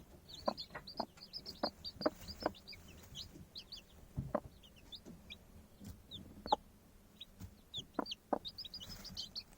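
Chickens clucking in short single calls, over many quick high chirps.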